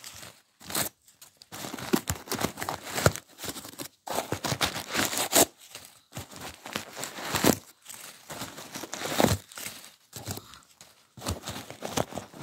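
Crumpled packing paper crinkling and rustling in a cardboard box as it is handled and pulled out, in irregular bursts with short pauses between them.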